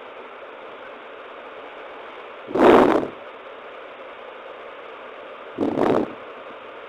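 Steady background hiss, broken by two short, loud bursts of noise about three seconds apart, the first the louder.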